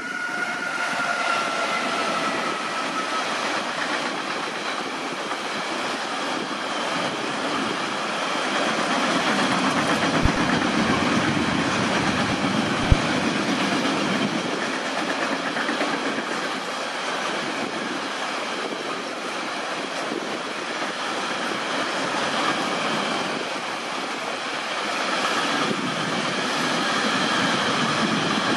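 An electric locomotive passes with a whine that falls in pitch over the first few seconds. It is followed by the long, steady rolling rumble of an intermodal freight train's pocket wagons loaded with semi-trailers, with two sharp wheel knocks about halfway through.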